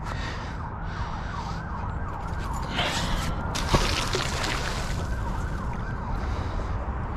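An emergency vehicle siren wailing, its pitch rising and falling quickly over and over. About three seconds in, a short splash as the thrown fishing magnet hits the river.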